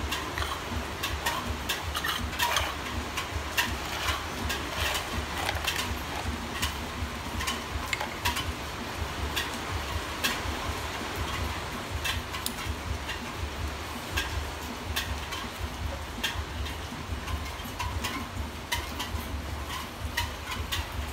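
Irregular light clicks and taps of plastic toy kitchen utensils as a baby monkey handles and mouths them, over a steady low rumble.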